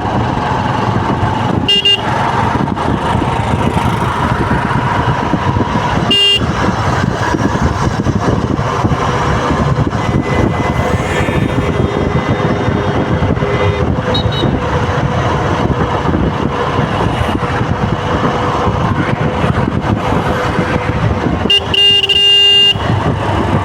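Traffic jam: many road vehicles running at once, with car horns honking. There are short toots about two and six seconds in, and a longer blast lasting about a second near the end.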